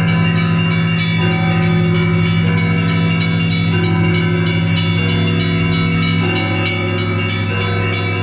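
Russian Orthodox monastery bells (kolokolny zvon) ringing in a full peal. Deep bells sound steadily under many smaller bells struck in quick succession.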